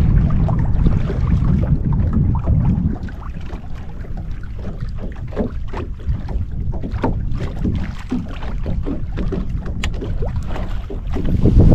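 Low wind rumble on the microphone aboard a fishing boat, easing about three seconds in. After that come scattered light clicks and knocks.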